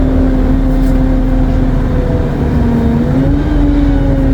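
Alexander Dennis Enviro 200 MMC bus engine running over a loud low rumble, with its turbocharger whining in a steady tone that sags slightly about two and a half seconds in, then rises again.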